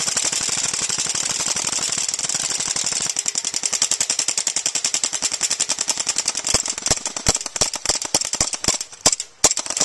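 Airsoft gun firing on full auto in a long, rapid, continuous burst. Past the middle the shots come slower and unevenly spaced, as single shots and short strings.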